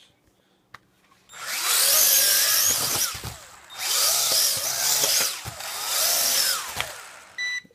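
X6 Tarantula hexacopter's small electric motors and geared propellers spinning up to a high whine three times, easing off in between, with a short high beep near the end. The drone is running on a worn gear rebuilt with Gorilla Glue as a temporary fix.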